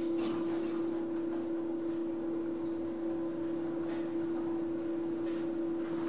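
Lift car travelling between floors, heard from inside the car: a steady, even hum, with a faint click about four seconds in.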